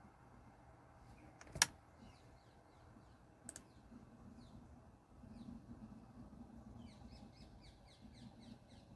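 Small birds chirping in rapid, short, falling chirps, growing busier near the end. Two sharp clicks come before them, a loud one about a second and a half in and a softer one about two seconds later.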